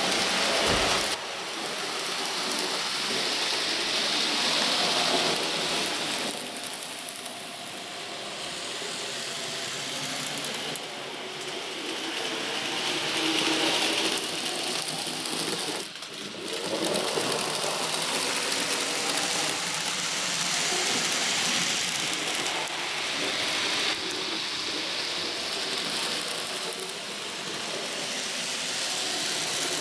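N gauge model trains running on the layout's track: a small-motor whirr and rail clatter that swells and fades as the trains pass.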